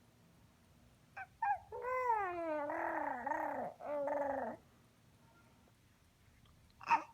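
Baby vocalizing: two short squeaks, then a long gliding, raspy "garrr" growl that breaks off and resumes briefly before stopping. A short sharp knock comes near the end.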